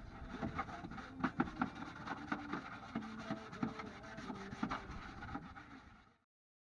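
A hand brush scrubbing dust and dirt off a car's inner fender wall in quick, scratchy back-and-forth strokes. It stops abruptly near the end.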